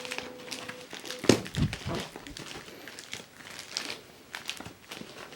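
Packaging being handled during an unboxing: crinkling with scattered crackles and a louder knock about a second and a half in.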